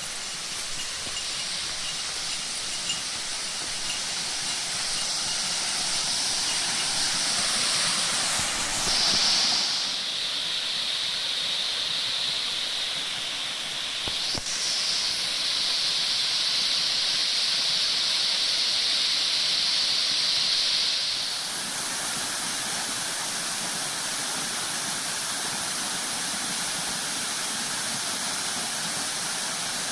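Waterfall: a steady rush of falling water, whose tone shifts abruptly a few times.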